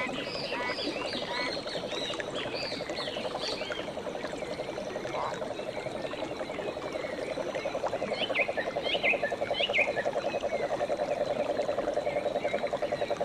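Frogs trilling: a steady, rapid pulsing trill that grows louder after about eight seconds. Birds chirp over it with quick short calls, thickest in the first few seconds and again around two-thirds of the way through.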